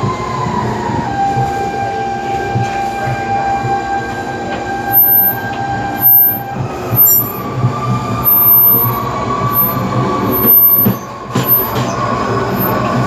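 Series 2000 electric multiple unit train's traction motors whining over the rumble of wheels on rails. The motor tone drops in pitch about a second in, holds steady, then climbs again from about eight seconds in. Several louder knocks come in the second half.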